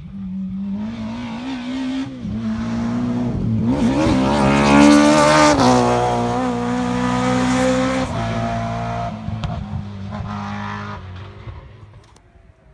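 A rally car approaching at speed on a special stage. Its engine note climbs and drops back with gear changes, is loudest about five seconds in as the car passes, then fades away.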